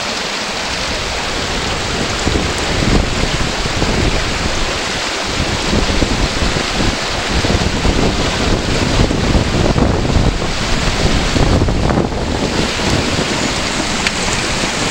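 Fast-flowing upland stream rushing over stones beneath a wooden footbridge, a steady loud rush, with wind buffeting the microphone from about two seconds in.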